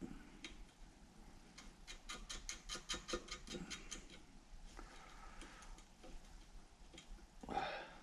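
A quick, even run of metallic clicks, about seven a second, lasting around two seconds, as the leaf spring is tightened into a Jaguar E-Type trunk hinge. Near the end comes a short louder scrape.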